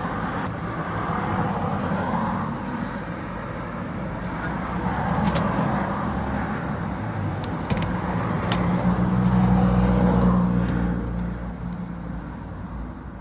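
Road traffic: motor vehicles running past, with the engine sound swelling to its loudest about nine to ten seconds in and then fading. A few short, sharp clicks come between about four and nine seconds in.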